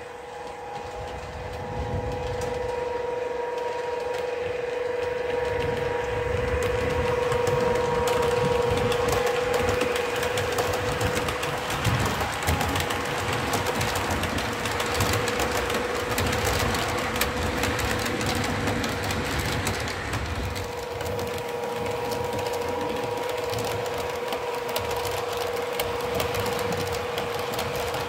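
Model train running on the layout track: a steady electric motor whine with a low rumble and the clicking of wheels over rail joints. It grows louder through the first several seconds as the long rake of coaches passes close, then eases a little later on.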